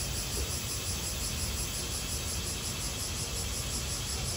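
Steady rush of a waterfall pouring into a pool, with a shrill insect chorus running over it.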